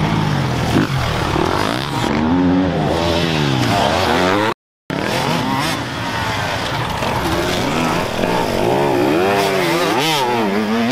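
Motocross dirt bike engines revving hard, their pitch rising and falling again and again as the riders work the throttle through the gears, with more than one bike heard at once. The sound cuts out briefly about halfway through.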